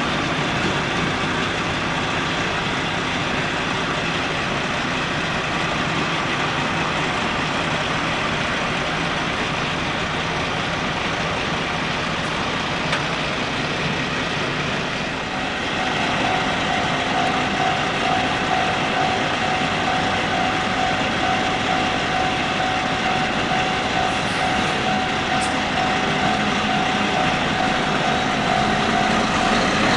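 Heavy double-trailer cement truck's diesel engine running steadily. About halfway through, a steady whine joins and the sound grows slightly louder.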